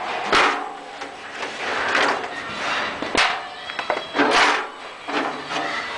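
Large sheet-metal cauldron being handled and shifted, giving about four loud clanks and scraping knocks with a brief metallic ring.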